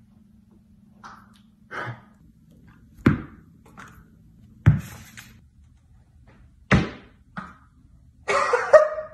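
A thrown tennis ball knocking and thudding against surfaces indoors: about five separate knocks at uneven gaps, the loudest about three seconds, four and a half seconds and near seven seconds in. Near the end a man's loud exclamation.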